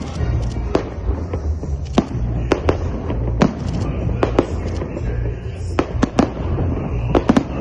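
Festive fireworks salute: about a dozen sharp bangs of shells bursting at irregular intervals, some in quick clusters of two or three, over a steady low rumble.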